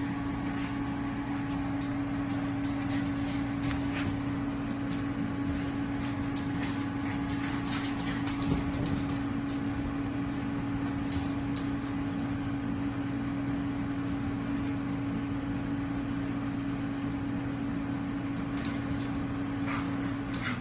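Steady hum of a running household appliance, cutting off at the very end, with scattered light clicks over it.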